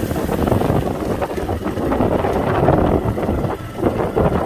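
Motorcycle ridden along a flooded road: the engine running under steady wind buffeting on the microphone, with water hissing under the tyres.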